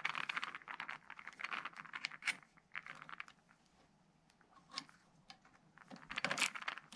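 Ratcheting driver with a socket clicking rapidly while a bolt is hand-tightened into a radius rod axle collar. It pauses for a few seconds in the middle, then clicks again near the end.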